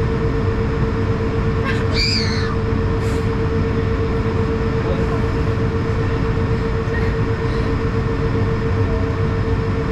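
Steady cabin noise of an Airbus A220 on the ground with its Pratt & Whitney PW1500G geared turbofans at idle, heard inside the cabin over the wing: a constant rumble with a steady hum tone. A brief high warbling sound comes about two seconds in.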